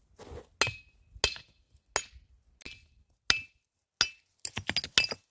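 Hatchet blade striking rock and stony ground: six sharp blows about two-thirds of a second apart, several with a brief metallic ring, then a quick flurry of lighter chops near the end.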